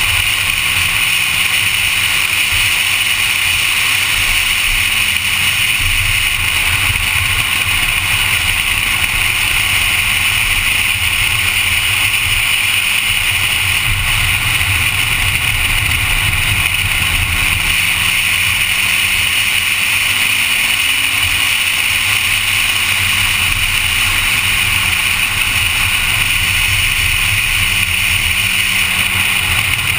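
Honda Civic at speed on a race track: a loud, steady din of engine, wind and road noise, with the engine's pitch slowly rising and falling as it is driven.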